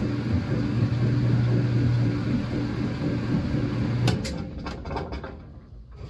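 2007 Whirlpool washing machine running with a steady mechanical hum, which cuts off about four seconds in, followed by a quick series of clicks and knocks as the machine winds down.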